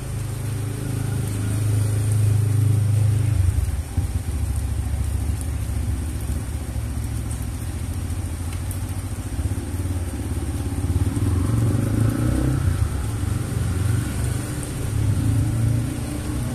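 A motor vehicle's engine running close by, a low rumble that shifts about three and a half seconds in and swells again near the end, over the steady hiss of rain.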